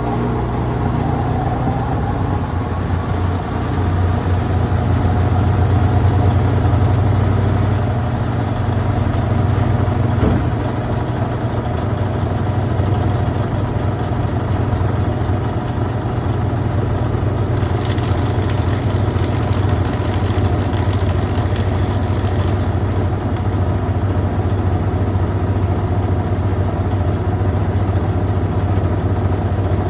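Brastemp Clean washing machine running, a steady loud motor hum with a hiss that rises for several seconds past the middle.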